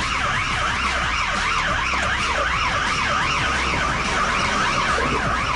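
Police car siren on a fast yelp, wailing rapidly up and down about three times a second, heard from inside the pursuing car over a low steady engine and road rumble.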